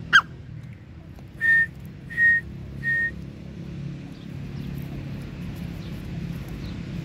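Grey francolin calling: one sharp note that falls steeply in pitch, then three short, even whistled notes at one pitch, about three quarters of a second apart.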